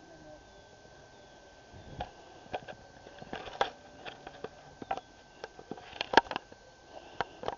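Irregular sharp clicks and crunches close to the microphone, from a hand-held camera being handled while walking over snowy forest ground, the loudest a little after the sixth second. A faint steady high tone runs underneath.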